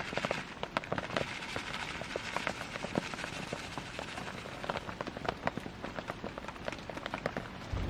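Wood campfire crackling: many irregular sharp pops and snaps over a light hiss.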